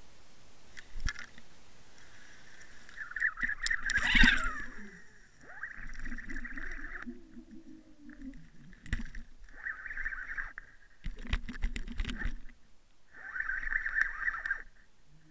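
Underwater sound picked up by a camera on a fishing rig: sharp knocks and clicks on the housing, the loudest about four seconds in, and four short bursts of noise, each about a second long.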